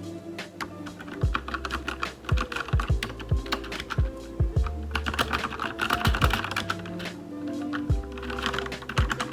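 Typing on a Velocifire TKL02WS wireless mechanical keyboard with brown switches and no O-rings fitted: a quick, uneven run of key clicks and clacks, with music underneath.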